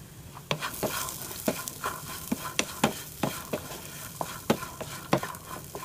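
Wooden spatula stirring boiled black chickpeas in a non-stick frying pan, giving irregular clicks and knocks about twice a second over a faint sizzle as they fry dry on low flame.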